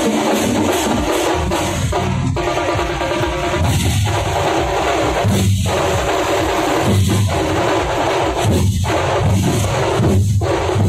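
Thampola percussion band: many large bass drums and smaller drums beaten together in a loud, heavy rhythm that never pauses.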